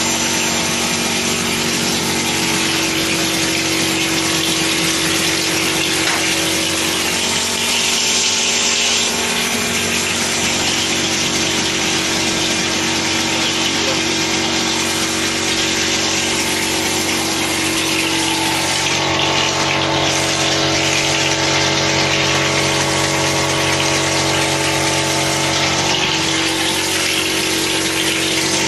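Plastering machine running steadily with its mixing shaft turning in the hopper: a constant mechanical hum under a dense hiss. A second, higher hum joins about two-thirds of the way in.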